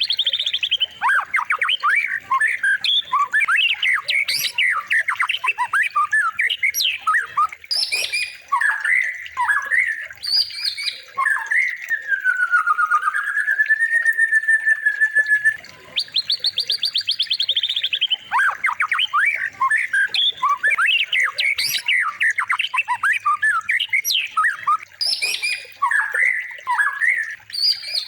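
Recorded songbird song of the kind used as a masteran tutor for white-rumped shamas. It is a fast, varied stream of chirps, trills and harsh squawking notes, with a long, wavering whistle a little before the middle.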